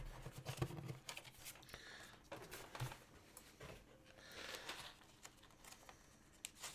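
Faint handling noise: light taps and soft rustling as a paper instruction sheet is lifted and handled over a plastic-wrapped tray.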